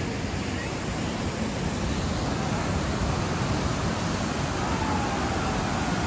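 Steady rush of flowing water tumbling over rocks, an even hiss with no break.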